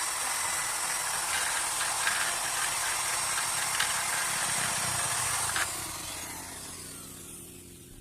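Electric hand drill running at speed with a steady high whine and a few sharp clicks, then released about six seconds in and winding down as it fades.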